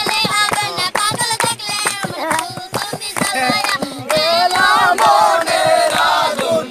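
Children's voices singing together loudly, with wavering, held notes, getting louder about four seconds in.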